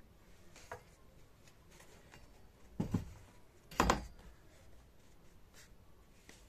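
Faint rustling and scraping handling noises, with two soft knocks about a second apart near the middle, the first one doubled.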